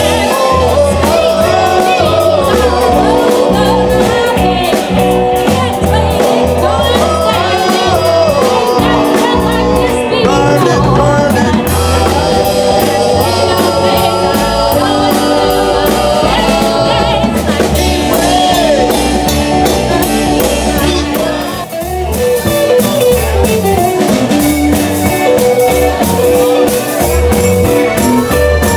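Live blues-rock band playing: a man and a woman singing over electric guitar, keyboard and drums.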